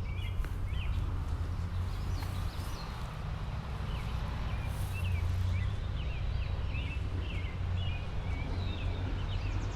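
Small birds chirping here and there over a steady low rumble, with faint rustling in the leaves and grass.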